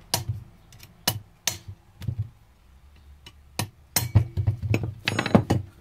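Hammer blows on a steel rod set against a Singer Model 12 sewing machine's hand wheel, driving out the locked shaft to free the wheel. The strikes are sharp and irregular, a few spaced out at first and then a quicker run near the end, one of them leaving a short metallic ring.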